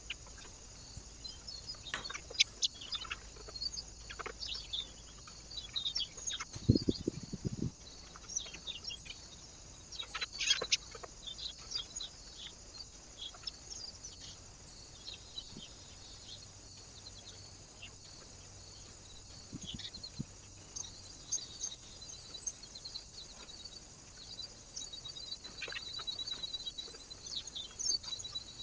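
Small birds chirping with short high calls, scattered and repeated, with occasional sharp clicks and a brief dull low thump about seven seconds in.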